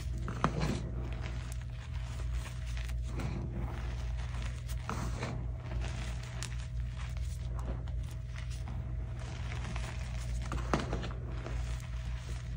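Soft crunchy dyed gym chalk being squeezed and crumbled by hand in a bowl of chalk powder: irregular soft crunches and the crackle of powder and crumbs falling back into the bowl, with a sharper click about half a second in and another near the end. A steady low hum runs underneath.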